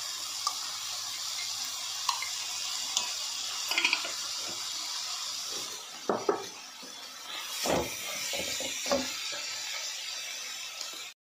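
Vegetable filling sizzling steadily in an aluminium kadai while a wooden spatula stirs it. The spatula knocks and scrapes against the pan a few times in the second half.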